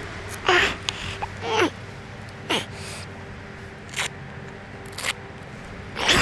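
Textile motorcycle gloves being pulled on and their cuff straps fastened: about six short rustling, scraping rips, roughly one a second.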